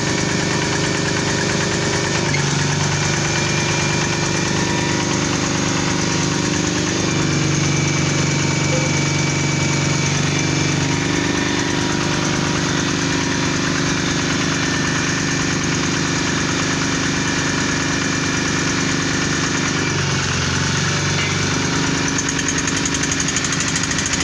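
Engine powering a small borehole drilling rig, running steadily. Its note shifts in pitch a few times: about two, seven and eleven seconds in, and again around twenty seconds.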